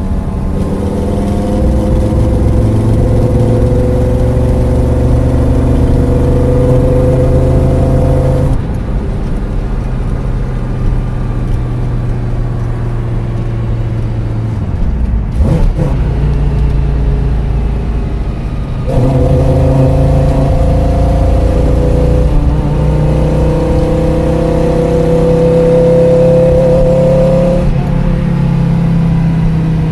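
Porsche 944 with a swapped-in VW 07K 2.5-litre five-cylinder engine being driven: the engine climbs steadily in pitch as it accelerates, then its revs fall away abruptly about eight and a half seconds in. After a steadier stretch it pulls up through the revs again from about nineteen seconds and falls away once more near the end.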